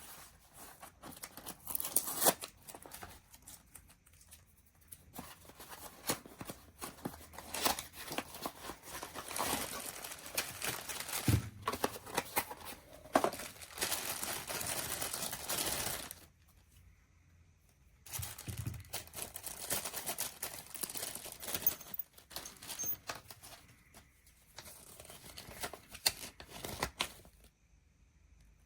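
Crinkling and rustling handling noise in irregular bursts, with a few sharp clicks; it drops away for about two seconds just past the middle.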